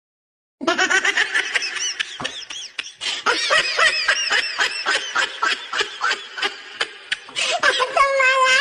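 Loud, high-pitched laughter that starts suddenly about half a second in and goes on in rapid bursts, breaking into a longer held squeal near the end.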